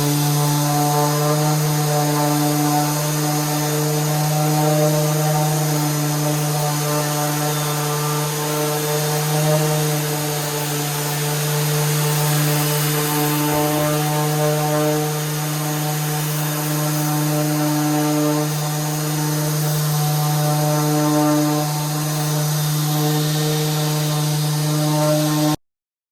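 Electric woodworking machine running steadily, a constant low hum that keeps the same pitch throughout and cuts off abruptly near the end.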